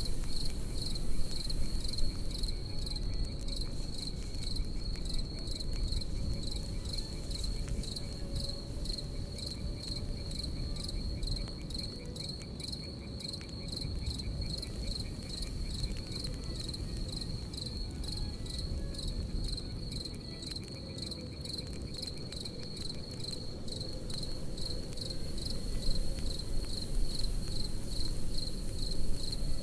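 Crickets chirping in a steady, high-pitched pulsing trill over the low rumble of a campfire, with sharp crackles and pops from the burning wood, a few louder ones near the start and end.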